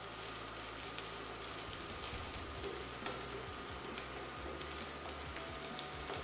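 Dried prawns, shallots and dried chillies sizzling in hot oil in a nonstick kadai as a wooden spatula stirs them. A steady frying hiss with scattered faint ticks of the spatula against the pan.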